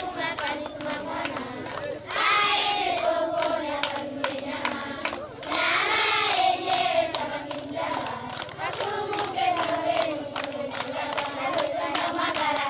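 A group of schoolchildren singing a game song together while clapping a steady beat, with the voices swelling louder twice, about two and five and a half seconds in.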